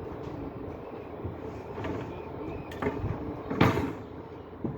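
Heavy construction machinery running steadily, with a few sharp knocks in the second half. The loudest knock comes about three and a half seconds in.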